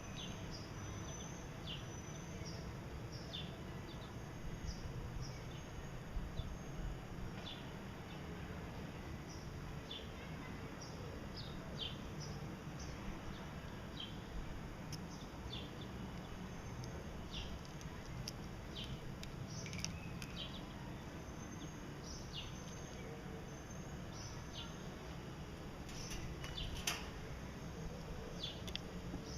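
Gouldian finches giving short, high chirps every second or so, over a steady low hum.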